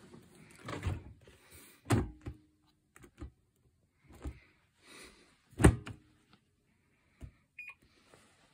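Clunks and knocks as a Panasonic countertop dishwasher's door is shut and handled, the loudest a sharp knock a little under six seconds in. Near the end comes a short electronic beep from its touch control panel.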